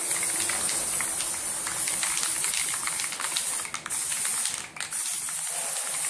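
Aerosol spray paint can hissing as yellow paint is sprayed in a long steady burst, with a short break about five seconds in.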